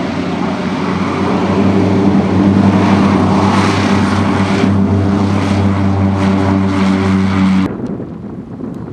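Propeller airplane's piston engine running at high power with a steady drone, growing louder over the first few seconds. The sound cuts off abruptly about eight seconds in, leaving only wind noise.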